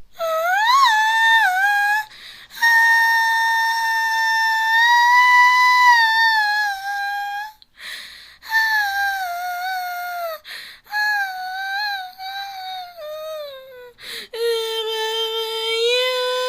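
A little girl crying in long, high-pitched wails, five in a row, most sliding downward in pitch at the end, with short breaks for breath between them; the second wail is held for about five seconds.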